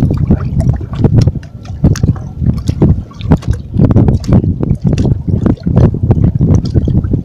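Wind buffeting the microphone in irregular low gusts, mixed with seawater sloshing against shoreline rocks.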